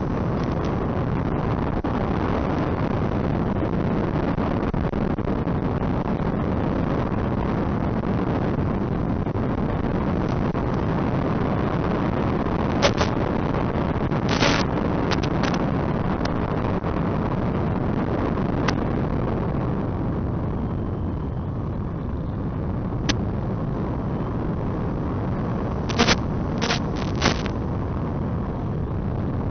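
Steady rushing wind and propeller noise on the on-board microphone of an RC P-38 FPV model plane in flight, broken by a few short sharp crackles, with a cluster of them near the end.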